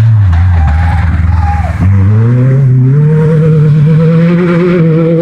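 Rally car engine passing close: its note falls as the car slows, then about two seconds in the engine is revved back up, its pitch climbing and then holding high and steady as the car drives through a ford.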